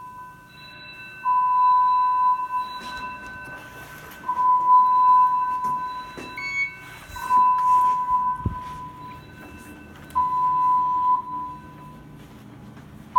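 A fire alarm tone from Edwards square ceiling alarm speakers: a steady tone near 1 kHz that sounds for about a second, then stops for two, four times over. This slow pulse, about twenty a minute, is the alert signal of a two-stage fire alarm. It signals that an emergency condition is being investigated and occupants should stand by, rather than the evacuation signal.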